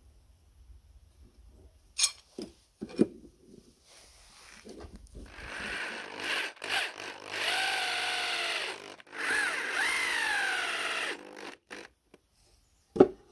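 Electric drill driving screws into a pine batten, its motor whining in a few short runs, the pitch rising and falling within each run. A couple of sharp wooden knocks come before it as the pieces are set in place.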